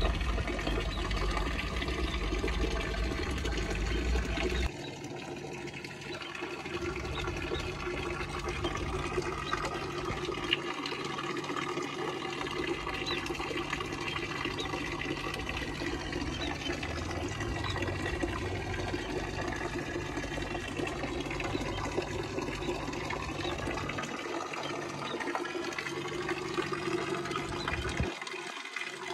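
Water from a small fountain spout running and splashing steadily into a shallow pool. A low rumble under it stops abruptly about five seconds in.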